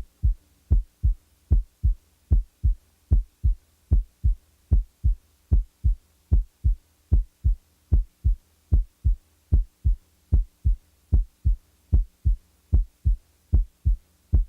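Heart sounds as heard on auscultation: only the normal first and second heart sounds, a regular lub-dub at about 75 beats a minute, with no mid-systolic click or systolic murmur between them. A faint steady hum lies underneath.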